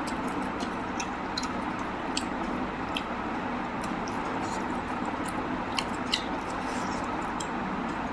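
A person chewing a mouthful of mutton curry and rice, with scattered wet mouth clicks and smacks over a steady background hiss.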